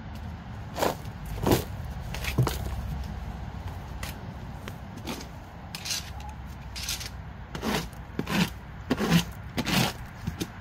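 Plastic leaf rake scraping through coop litter in short, irregular strokes, about ten in all.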